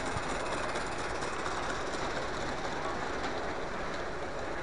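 Live-steam garden-scale steam locomotive and its cars running past close by on the track, making a steady, even noise.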